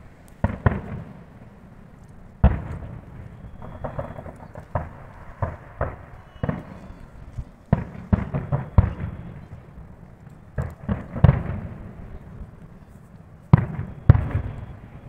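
Fireworks going off: many sharp bangs at uneven intervals, each trailing off in a short rumble, with some of the loudest near the end.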